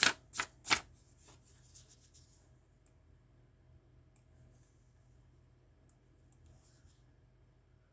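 Three or four sharp clicks and taps in the first second as a pen and a sheet of sketchbook paper are handled and set down on a hardboard drawing board, then quiet room tone with a few faint ticks.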